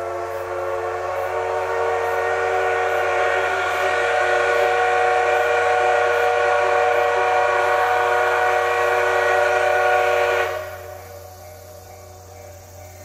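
Class C58 steam locomotive blowing one long steam whistle for departure, growing louder over the first few seconds and cutting off suddenly about ten seconds in.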